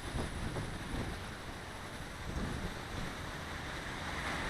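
Strong gusty wind buffeting the microphone: a rough, fluttering rumble with a hiss above it, rising and falling with the gusts.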